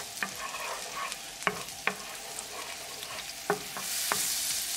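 Minced garlic sizzling in melted butter and olive oil in a fry pan, stirred with a wooden spatula that knocks against the pan a few times. The sizzle swells louder near the end.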